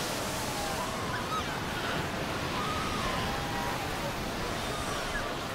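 Surf breaking over a crowd of Cape fur seal pups on the shore of an incoming tide: a steady rush of waves and foaming water, with faint wavering bleats from the pups over it.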